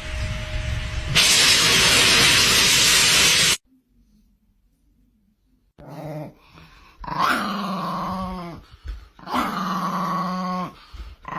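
A dog making long, growly, howling calls, two drawn-out ones near the end. Before them, a loud rushing noise cuts off suddenly.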